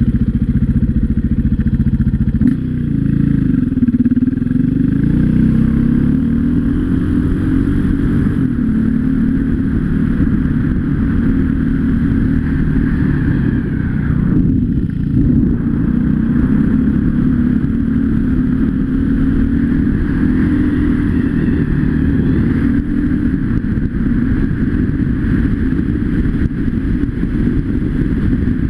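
Off-road motorcycle engine running steadily as the bike is ridden along a dirt trail, the throttle easing off briefly about halfway through before picking up again.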